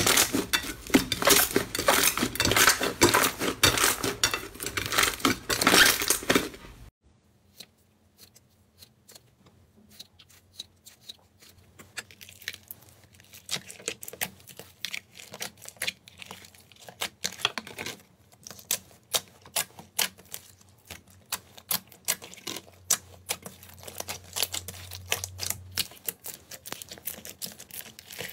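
Hands kneading and pressing slime, giving dense, rapid clicking and crackling from popping air pockets. About seven seconds in it stops abruptly, and after a short hush quieter, sparser clicks and pops follow as hands squeeze a second slime mixed with dark sticks and beads.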